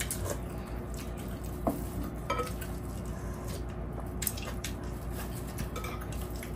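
Quiet eating sounds: sips of soup from a spoon, chewing, and a few soft clicks of a spoon against a bowl, over a faint steady hum.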